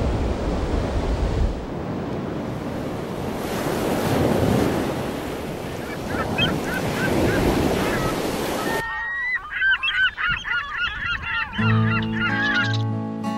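Ocean surf washing steadily, with wind buffeting the microphone in the first second or so. After a sudden cut, a flock of birds calls rapidly and noisily for a few seconds, and acoustic guitar music comes in near the end.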